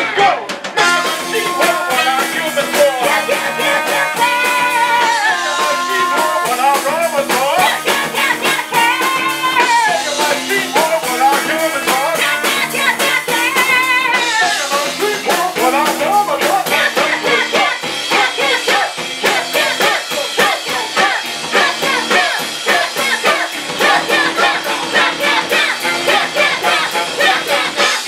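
Live rock band playing: a saxophone plays rising-and-falling melodic phrases over electric guitar and a drum kit. The band gets busier and fuller from about halfway through.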